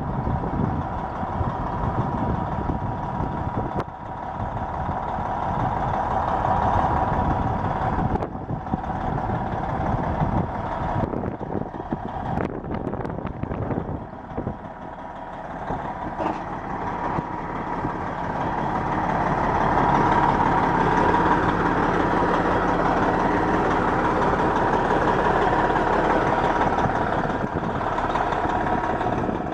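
Kenworth W900L semi truck's Detroit Series 60 12.7-litre diesel engine running, with a steady high tone through it; it grows louder a little over halfway through.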